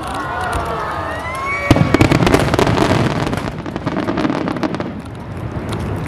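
Fireworks: several whistling shells rising in pitch together, then a loud burst just under two seconds in, followed by a rapid crackle of many small pops.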